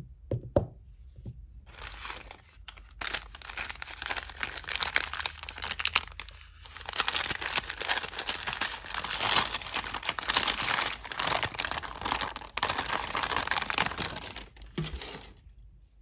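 Kraft paper wrapper crinkling and rustling as it is unfolded from a bar of soap: dense, irregular crackling that grows louder through the middle and stops shortly before the end. A couple of soft knocks about half a second in.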